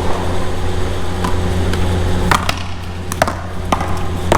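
One-wall paddleball rally: sharp knocks of paddles striking the ball and the ball hitting the wall, one about a second in and then several in quick succession through the second half, over a steady low rumble.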